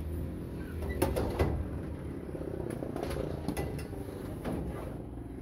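Thin sheet-metal kiosk door being handled: a few sharp knocks and clanks, the two loudest about a second in, over a steady low rumble.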